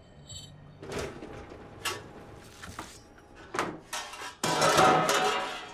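Kitchen handling sounds at an oven: several short knocks and clatters as the oven door is opened and a roasting pan handled, then a loud rushing hiss for about a second near the end.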